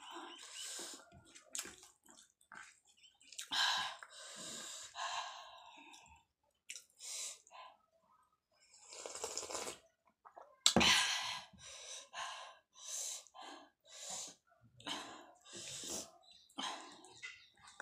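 Close-miked eating sounds: wet chewing of rice and chickpeas, with slurping as broth of a cauliflower curry is sipped from a bowl.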